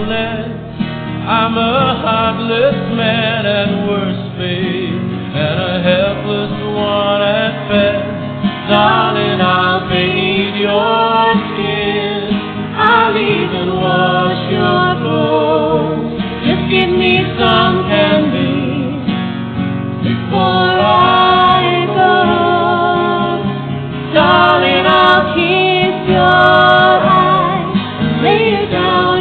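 Music: a song with a singer over guitar accompaniment.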